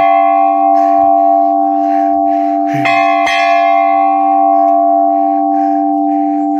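Hanging temple bell ringing loudly with several long steady tones that slowly fade. It is struck again about three seconds in, with a lighter second knock half a second later.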